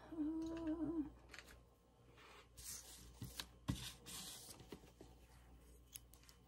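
A short hummed "mm" in the first second, then faint rustling and a few light taps as hands handle paper and fabric on a tabletop.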